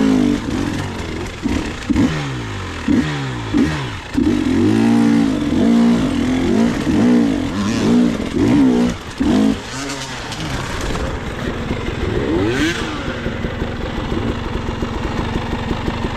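Dirt bike engine revving up and down again and again as the throttle is worked, then settling to a steady, lower putter for the last few seconds.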